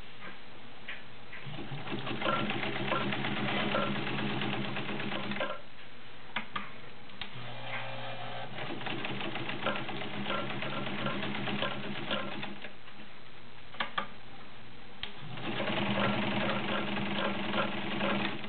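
Kenmore Model 50 all-metal sewing machine, driven by a 1.2 amp Kenmore motor, stitching through six layers of denim: the motor runs up and the needle works rapidly in three runs with short pauses between. It pulls the thick stack through smoothly.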